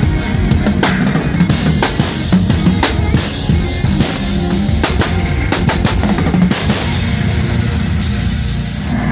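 Live drum kit played hard and busy, with dense snare, tom and kick strikes and several cymbal crashes, over a low bass line.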